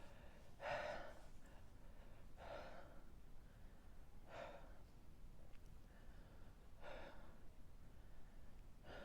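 A man breathing heavily, four breaths about two seconds apart, from the burn of a dried Carolina Reaper pepper he has just eaten.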